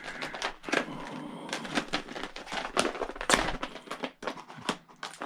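Irregular clicks and light knocks of metal and hard plastic: a screwdriver extension and bit from a new tool set being handled and fitted.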